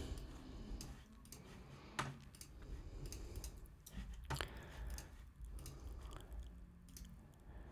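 Faint, scattered clicks of a computer mouse and keyboard, one sharper click about two seconds in, over a low hum.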